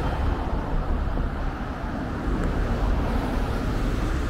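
Steady road traffic noise, a low rumble without any siren.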